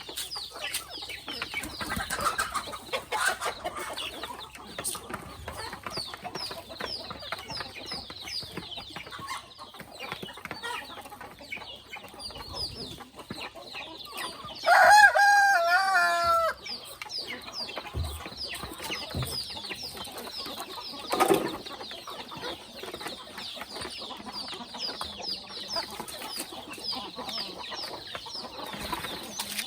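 Free-range chickens clucking, with a rooster crowing once, for nearly two seconds, about halfway through. Short high chirps repeat steadily throughout.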